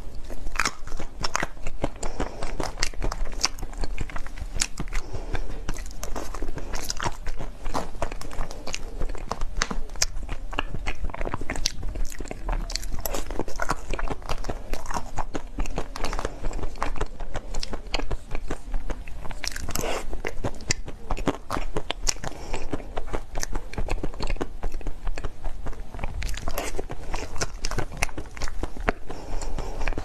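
Close-miked eating sounds of a chocolate-shelled mousse cake: chewing and crunching with moist mouth noises and many small clicks all the way through.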